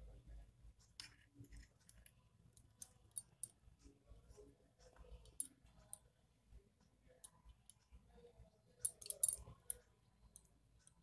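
Faint, scattered small clicks and handling noises from hands pleating and pinching a momo's dough wrapper closed on a wooden board, with the loudest cluster of clicks about nine seconds in.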